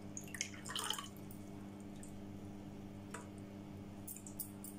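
Steel ladle stirring and lifting jaggery water in a plastic bowl: liquid dripping and sloshing, with a few soft clicks of the ladle against the bowl, over a steady low hum.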